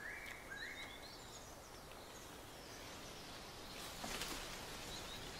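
Quiet forest ambience: two short bird calls of level pitch right at the start, a few faint high chirps, and a soft rustle about four seconds in.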